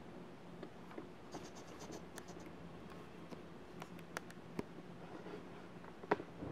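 A few faint, sharp clicks and small taps, as a computer mouse is clicked to step through screen test patterns. The sharpest click comes about six seconds in, and a faint low steady hum runs underneath.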